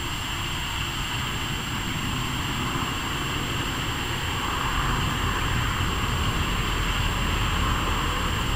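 Wind blowing across the camera microphone, a steady rushing noise with a low rumble that grows stronger about halfway through.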